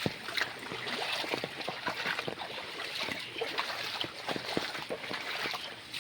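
Floodwater flowing and splashing: a steady rush of water with many small, sharp splashes scattered through it.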